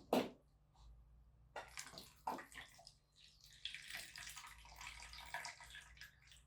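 A sharp knock, then a few clattering clicks, then water running from a tap for about three seconds.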